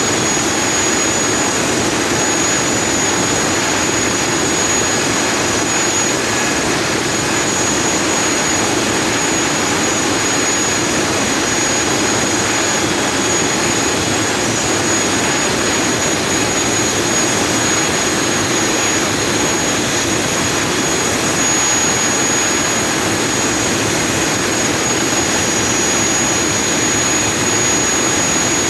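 Weichai WHM6160C550-5 six-cylinder turbocharged marine diesel engine running steadily at about 880 rpm, loud, with a steady high-pitched turbocharger whistle over the engine noise.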